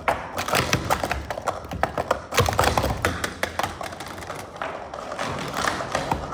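Plastic sport-stacking cups clattering rapidly on a table as they are stacked up and brought down, a quick run of sharp clicks and clacks.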